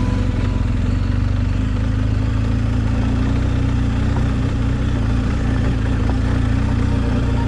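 BMW R 1250 GS Adventure's boxer-twin engine running steadily as the loaded motorcycle rolls along a gravel track, with tyre and gravel noise over it.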